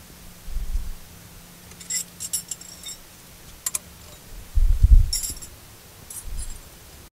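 Light metallic clinks and rattles of small tools and brake-line fittings being handled while a brake line is connected to a rear brake caliper, several sharp clicks in all, with a few dull low thumps, the loudest about five seconds in.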